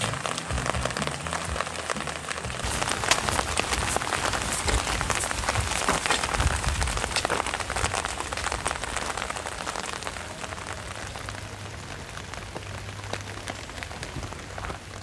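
Rain falling on wet pavement and puddles: a dense patter of many small drop impacts over a steady hiss. It thickens a couple of seconds in and grows gradually quieter through the second half.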